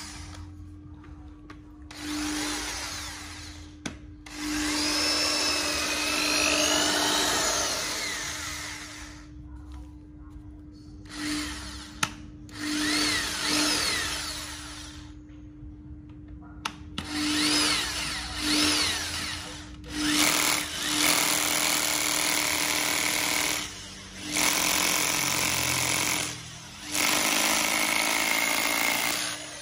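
Bosch corded drill (100 V, 420 W) drilling into a wooden block. It runs in a series of bursts of a few seconds each, its motor whine rising and falling with the variable-speed trigger. Near the end come several longer, steadier runs.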